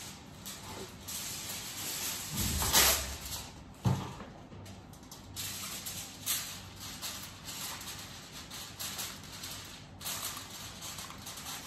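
Kitchen handling noises from food preparation at a counter: irregular rustling and shuffling, louder about two and a half seconds in, with a sharp knock about four seconds in.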